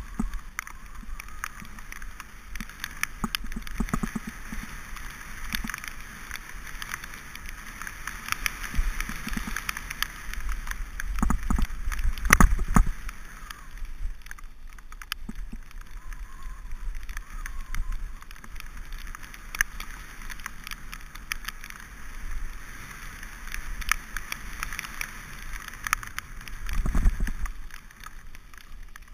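Mountain bike descending a rough dirt and gravel track: tyres crunching and the bike rattling over bumps, with steady wind noise on the microphone. Sharp knocks from rough ground come throughout, loudest about twelve seconds in and again near the end.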